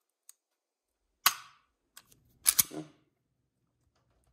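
Sig P365 pistol, fitted with an IMT flat trigger and Mcarbo spring kit, being dry-fired. It gives a few sharp metallic clicks of the trigger breaking and resetting: a loud click about a second in, and a close pair about two and a half seconds in.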